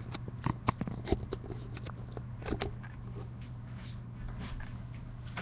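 A quick run of sharp clicks and taps from hands working the camera and laptop, the loudest near the start, dying away after about two and a half seconds. A steady low electrical hum lies underneath throughout.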